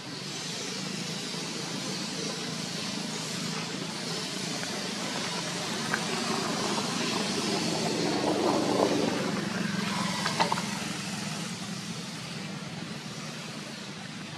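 Steady outdoor background noise with a low motor hum that swells about halfway through and then fades, and a few faint clicks.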